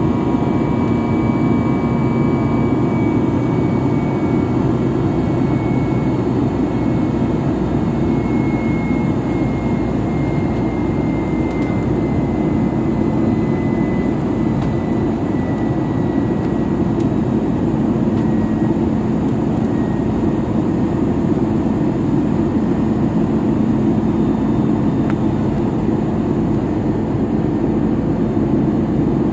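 Steady drone of an airliner's jet engines heard inside the passenger cabin in flight after takeoff. A faint high whine slowly falls in pitch through the first twenty seconds or so.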